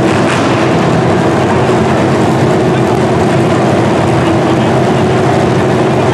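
Demolition derby cars' engines running loudly and continuously, several at once, with no break in the sound.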